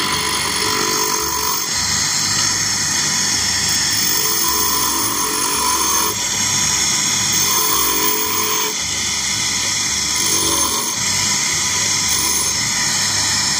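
Bench grinder running while a diamond wheel dresser is pressed against the spinning abrasive wheel and worked across it, grinding the face of a wheel that has worn out of square back to true. The grinding noise swells and eases a few times as the dresser bears on the wheel.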